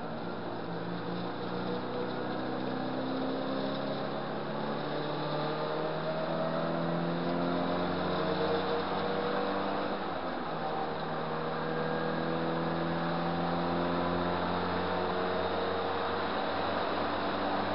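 Riley 1.5's BMC B-series four-cylinder engine running hard under racing load, heard from inside the cabin. Its pitch climbs slowly, drops briefly about ten seconds in, then climbs again, over steady road and wind noise.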